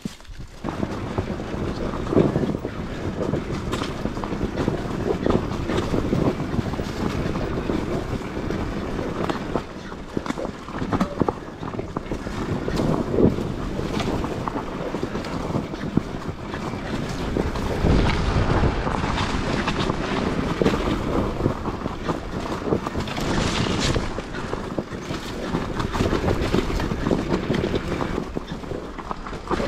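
Enduro dirt bike engine running and revving up and down as the bike is ridden over rough bush ground, with wind buffeting the microphone. The sound gets loud about half a second in and scattered knocks come through.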